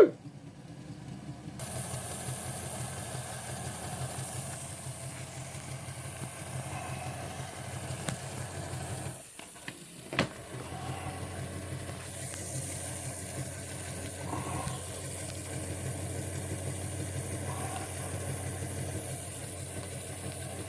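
Small electric motor and gear train of an HO-scale Doodlebug model railcar running slowly on a test track with a steady hum and hiss, on its first test run after its broken gears were repaired with CA glue and bicarb soda. The sound dips briefly about nine seconds in, followed by a single click.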